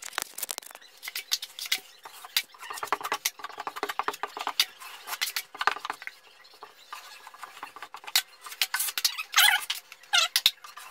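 Taping knife scraping and clicking against a mud pan and spreading joint compound over a drywall joint, sped up so the strokes come as a rapid, squeaky patter of scrapes and clicks.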